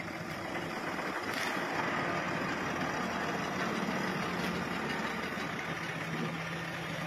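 Diesel engines of a backhoe loader and a dump truck running steadily while the loader lifts a bucket of debris into the truck, with a low steady hum that comes through more strongly in the second half.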